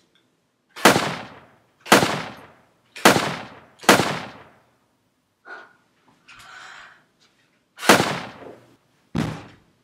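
Pistol gunshot sound effects: four sharp shots about a second apart, then a fifth after a pause of about four seconds, each dying away quickly. A dull thump follows near the end.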